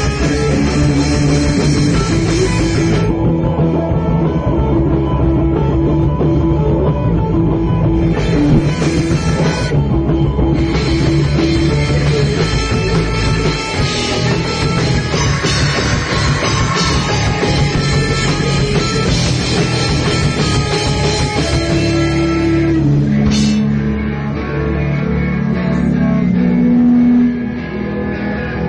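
A rock band playing live together: guitars, bass guitar and a drum kit.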